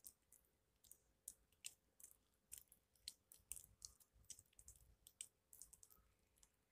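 Near silence broken by faint, irregular small clicks and crackles.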